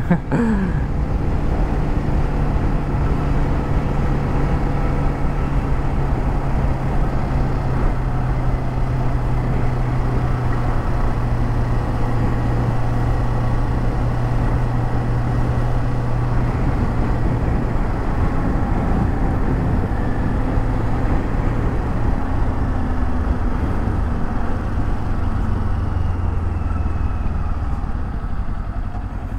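Kawasaki Z400 parallel-twin engine running steadily under way, mixed with wind and road noise picked up by a microphone inside the helmet. The engine note drops lower a little over halfway through, and the sound eases off slightly near the end.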